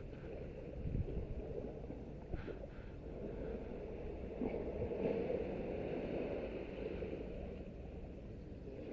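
Steady outdoor rumble of wind on the microphone, with a few faint handling clicks.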